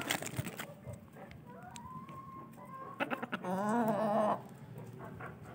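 Chickens calling while being hand-fed potato chips: a faint thin call early on, a few sharp clicks about three seconds in, then a louder wavering call lasting about a second.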